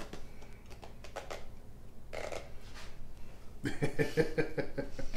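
Light clicks and taps of small brewing tools being handled, then a man laughing heartily in a quick run of 'ha-ha' pulses about four seconds in.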